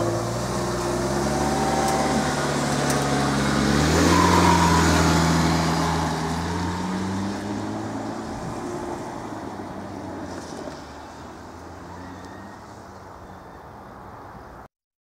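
Road vehicle engine pulling away, its pitch stepping up over the first few seconds as it gets louder, then fading steadily as it drives off. The sound cuts off abruptly near the end.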